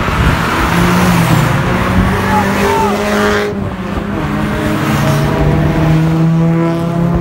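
Several car engines running together, their pitch shifting as they are revved, over road and tyre noise. The high hiss drops away abruptly about three and a half seconds in.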